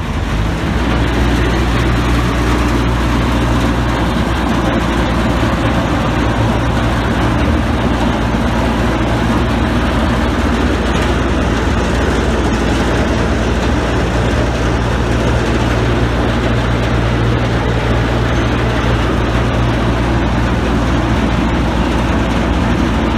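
Fireboat Three Forty Three's diesel engines running steadily close by as it manoeuvres to dock, a deep, even hum with a broad wash of noise over it.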